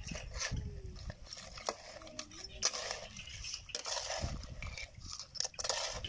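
Metal spatula scraping and clinking against a steel wok as crabs are stirred and roasted, the shells clattering in the pan. The knocks and scrapes come irregularly throughout.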